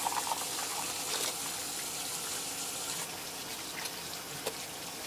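Water running in a steady rushing hiss, like a tap left on.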